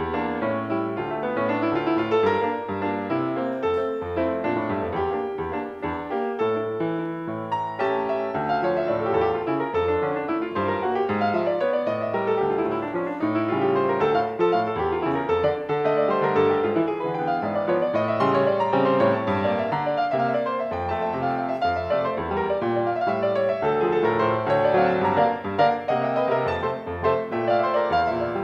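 Solo Blüthner grand piano playing a busy passage of many quick notes over a moving bass line, without a break.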